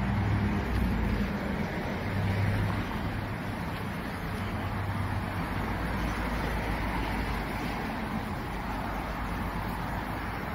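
Road traffic: cars driving past on the street, a steady low rumble that swells near the start and again about two seconds in.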